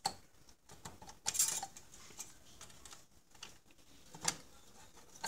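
Sharp clicks and short rattles of hard plastic and metal parts being handled on an HP LaserJet 4 printer's exit assembly as its small metal tab is unhooked. The loudest cluster comes about a second and a half in, with another click near the end.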